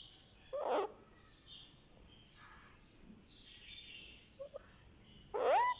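One-month-old Indian ringneck parakeet chick calling: two louder calls, about half a second in and near the end, the last one rising then falling, with soft high chirps in between.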